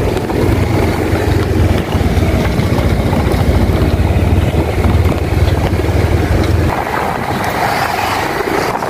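Motorbike running while being ridden, a steady low rumble with wind buffeting the microphone; the rumble eases about seven seconds in.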